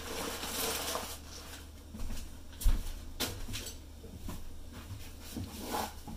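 Handling sounds from unwrapped smoked beef ribs: butcher paper rustling for about the first second, then a few light knocks and taps.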